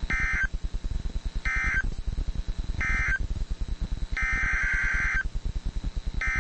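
NOAA Weather Radio SAME digital data bursts: three short end-of-message bursts about a second apart, then two longer header bursts starting the next alert. Under them runs a fast low pulsing hum from the radio reception.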